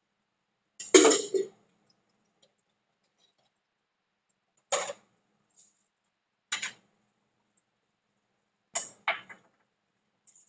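Short knocks and clinks of a metal kettle and kitchenware being handled and set down on a counter: a loudest cluster about a second in, then single knocks a couple of seconds apart, and two in quick succession near the end.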